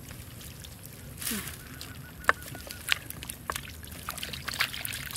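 Hands groping in shallow muddy water among grass roots, with small splashes and squelches and a few sharp clicks. A short falling call sounds about a second in, and faint high chirps follow.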